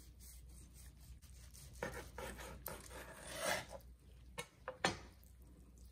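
A long slicing knife saws through the crusty bark of a smoked brisket in a few noisy strokes. Near the end come two short, sharp knocks on the wooden cutting board.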